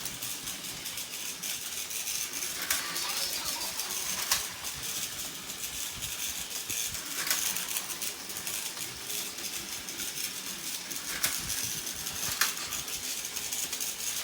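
Plarail plastic toy trains running on plastic track: a steady high-pitched rattle, broken by about five sharp clicks spread over the stretch.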